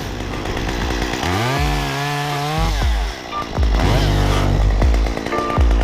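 Chainsaw revving through a cut. Its pitch climbs about a second and a half in, holds, and drops back a second later, then the saw runs up again.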